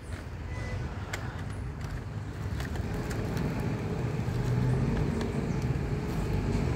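Road traffic: a vehicle's low engine rumble slowly growing louder, with a few faint clicks and rustles as a dog noses through a plastic garbage bag.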